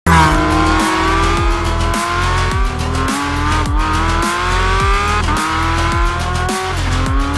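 Porsche 718 Cayman GT4 RS Clubsport's 4.0-litre six-cylinder boxer engine pulling hard. Its pitch climbs and drops back three times as it shifts up through the gears, over music with a steady beat.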